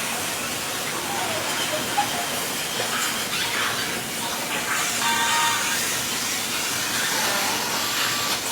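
Steady hissing noise of factory machinery, with a few short faint tones over it.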